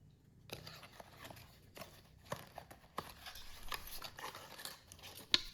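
Faint rustling and small irregular taps and clicks of packaging and small parts being handled, with a sharper click near the end.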